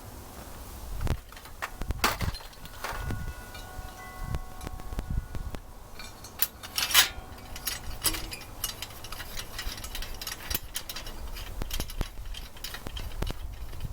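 Metal hand tools and engine parts clinking and knocking, with one strike about three seconds in ringing on for a couple of seconds.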